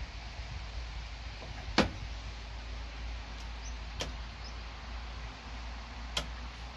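Three sharp clicks about two seconds apart, the first the loudest, over a steady low rumble.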